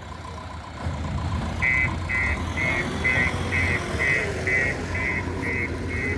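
JCB 3DX Plus backhoe loader's diesel engine running under load, louder from about a second in, with its reversing alarm beeping about twice a second as the machine backs up.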